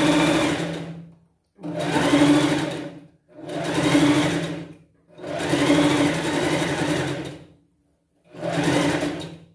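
Electric sewing machine stitching in five short runs, each speeding up and slowing down, with brief stops between as the fabric is folded and guided.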